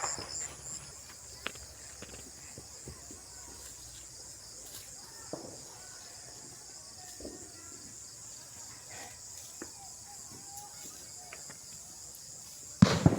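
Crickets and other night insects chirping in a steady, pulsing high trill, with faint scattered knocks and rustles. A sudden loud bang near the end.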